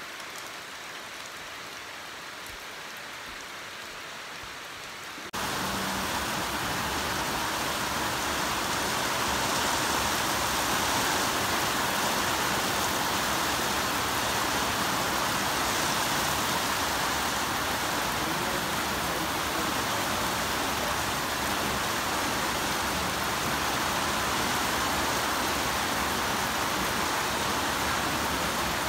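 Steady rain, then about five seconds in a sudden change to heavier, louder rain falling on rooftop solar panels and a corrugated metal roof, a steady hiss that holds to the end.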